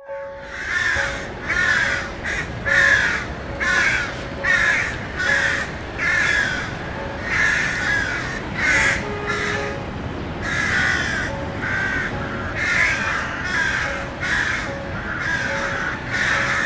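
Crows cawing over and over, about one harsh caw a second, against a steady hiss.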